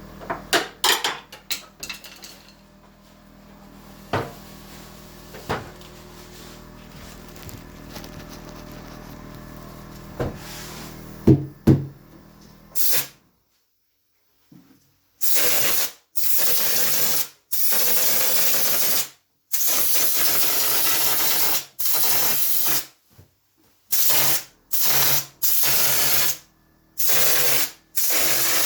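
Ceiling texture spray gun hissing in repeated bursts of one to two seconds, starting about halfway through, each stopping abruptly. Before that there are a low hum and scattered clicks and knocks.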